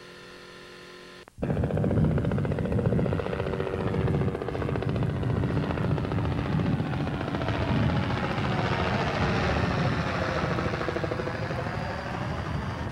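A faint steady hum gives way suddenly, about a second in, to a loud engine running with a fast throbbing beat. Its pitch sags and then climbs again over the last few seconds.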